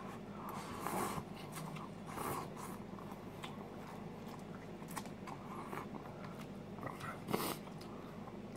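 A person eating instant cup noodles with a fork: blowing on a forkful, slurping noodles and chewing, in short soft bursts with the loudest about seven seconds in.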